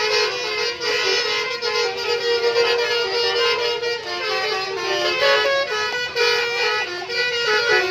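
Bus 'telolet' horn playing a tune: multi-tone air horns sounding a string of held notes that step up and down in pitch.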